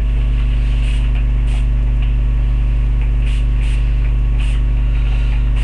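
A hand spray bottle squeezed in short spritzes, about half a dozen hisses spread over a few seconds, over a loud steady electrical mains hum.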